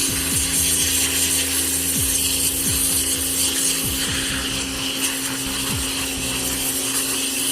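Pressure washer running steadily with a constant motor hum, its water jet hissing as it blasts dirt off a lawn mower.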